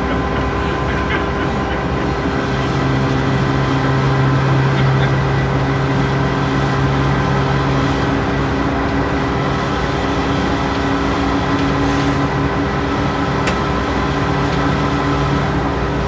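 Locomotive running, heard from inside the cab: a steady drone of engine hum over rolling noise, with a low tone that swells and fades.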